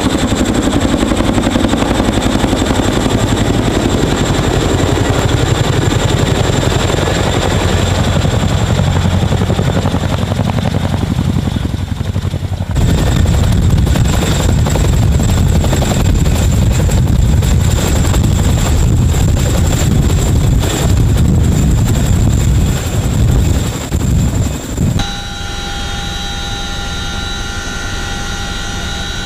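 CH-47 Chinook tandem-rotor helicopter at close range: a heavy rotor beat over the rumble of its twin turboshaft engines. Abrupt changes between takes come at about 13 s and 25 s. The last few seconds are a little quieter, a steadier turbine whine with several held tones.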